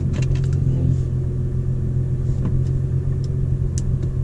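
2017 Nissan GT-R's twin-turbo 3.8-litre V6 idling steadily through a Boostlogic 4-inch catback exhaust, a low drone with a few light clicks in the first half second.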